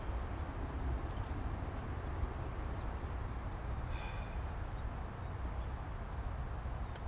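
Outdoor ambience: a steady low wind rumble on the microphone, with scattered faint, short high chirps of birds and one brief call about four seconds in.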